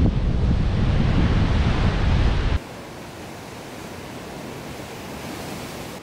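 Ocean surf breaking over rocks, with wind buffeting the microphone into a heavy low rumble. About two and a half seconds in, it cuts abruptly to a quieter, steady wash of surf.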